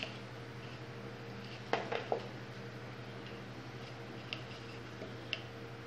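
Orange plastic sieve being tapped and shaken while sifting cake mix into a plastic bowl: a few soft taps about two seconds in, then occasional faint ticks, over a low steady hum.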